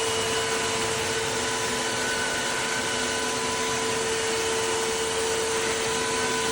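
Cordless wet-dry vacuum floor cleaner running steadily: an even motor hum with a steady whine over a rushing hiss.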